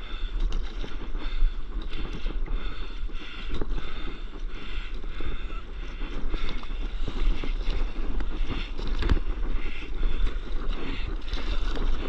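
Wind rumbling and buffeting on the microphone over the rushing and splashing of sea water while surfing, with irregular crackles and slaps throughout.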